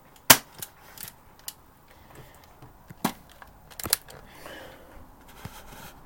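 BB-gun revolver firing: sharp cracks, the loudest just after the start, more about three and four seconds in, with lighter clicks between.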